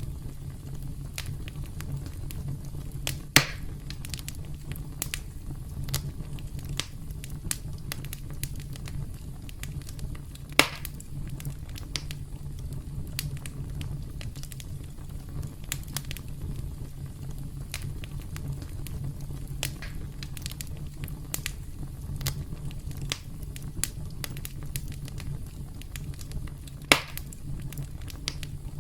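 Campfire crackling: a steady low rumble of burning wood under frequent small pops and snaps, with three louder sharp pops spread through it.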